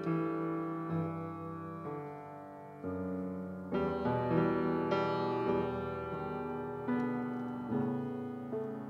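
Piano playing slow, sustained chords, a new chord struck about every second.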